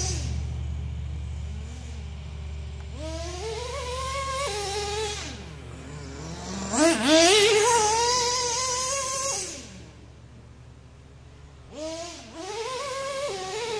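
Traxxas T-Maxx 3.3 nitro two-stroke engine revving in bursts as the truck drives, with a long full-throttle run at a high, rising pitch in the middle, dropping to a low idle, then revving up again near the end.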